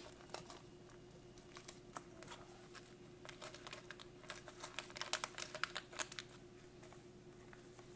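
Foil-laminate MRE beverage powder pouch crinkling in the hands as it is handled and opened: a run of faint, irregular small crackles, densest around the middle.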